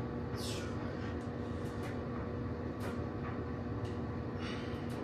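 Steady low background hum with a faint constant tone in it, broken by three short, faint hissing sounds: about half a second in, near three seconds, and about four and a half seconds in.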